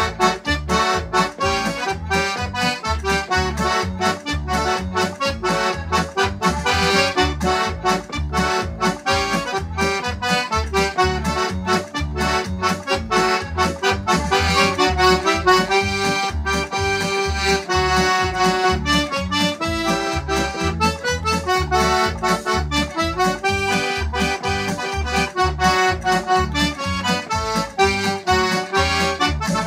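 Diatonic button accordion playing a lively Québécois folk polka in D, the melody running over a steady bass beat of about two notes a second.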